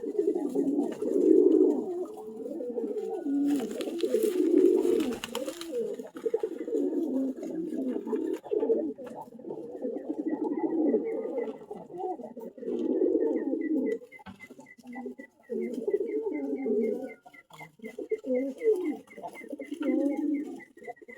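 Several domestic pigeons cooing continuously, their low calls overlapping. There is a short burst of rustling noise about four seconds in, and from about halfway a faint, quick high peeping repeats several times a second.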